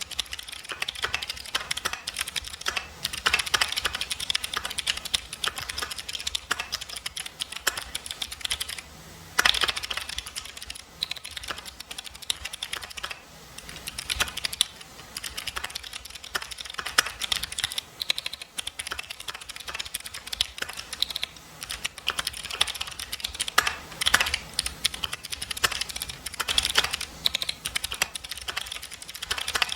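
Mechanical keyboard with clicky jade switches being typed on steadily, a fast, continuous clickety clack of keystrokes. There is a brief pause about nine seconds in, followed by a louder keystroke.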